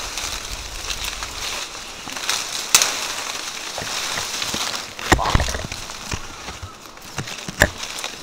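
Mango tree leaves and branches rustling and crackling as a person climbs and reaches through them, with a few sharp cracks.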